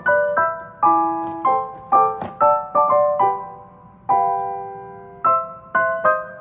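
Background music: a gentle piano melody of struck notes and chords, each ringing out and fading, with one chord held about a second near the middle.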